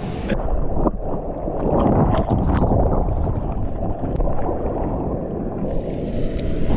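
Sea water sloshing and splashing around an action camera at the ocean surface, muffled and gurgling, with splashes now and then. A brighter hiss comes in near the end.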